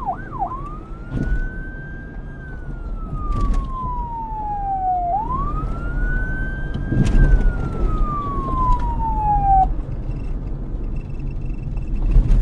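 Police car siren going from a fast yelp into a slow wail: two long sweeps, each rising quickly and then falling slowly, before it cuts off about ten seconds in. A low rumble runs underneath throughout, and a sharp knock comes right at the end.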